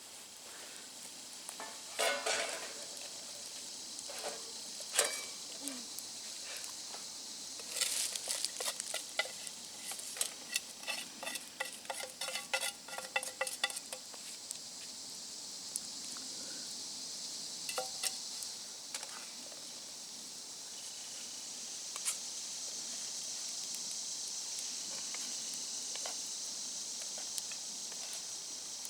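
Potatoes and sausage frying in a pan over a campfire: a steady sizzle that grows a little louder near the end. A utensil stirs and clinks against the pan in a quick run of clicks and scrapes between about 8 and 14 seconds in, with a few single knocks before and after.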